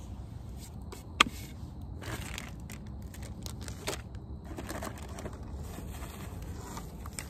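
A wooden cutting board being handled on a wooden table: one sharp knock about a second in, then lighter knocks and soft rustling and scraping.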